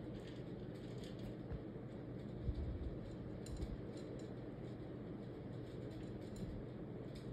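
Cat eating from a bowl: faint, irregular crunching clicks as it chews its food, with a soft thump about two and a half seconds in.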